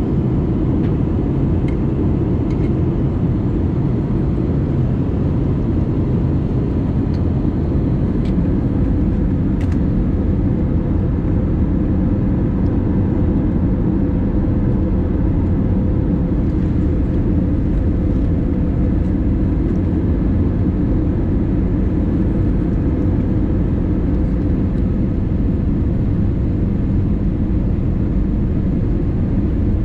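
Steady cabin noise inside an Airbus A320neo airliner on approach: a low, even rush of airflow and engine sound with a faint constant hum, and a few light ticks.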